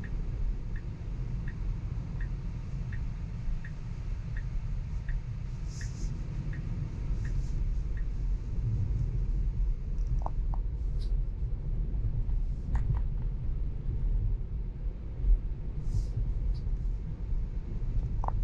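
Low, steady road and tyre rumble inside a moving Tesla's cabin. For the first eight seconds or so, a turn-signal indicator ticks about once every 0.7 s, which fits the left turn onto Clark Avenue. A few brief clicks come later.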